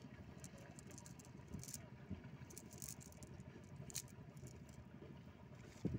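Faint rustling and light scattered clicks of a cast net's mesh being handled and picked through by hand, with one louder knock near the end.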